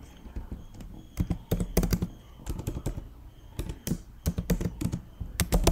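Typing on a computer keyboard: irregular keystrokes in quick runs with short pauses between them.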